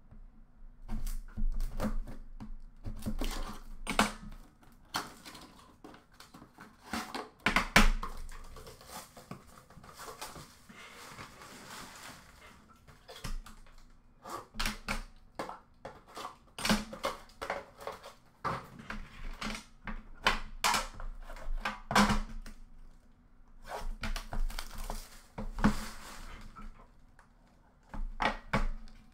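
Shrink-wrap being slit with a knife and torn off an Upper Deck The Cup hockey card box, with crinkling plastic and a run of clicks and knocks as the box is handled and opened on a glass counter.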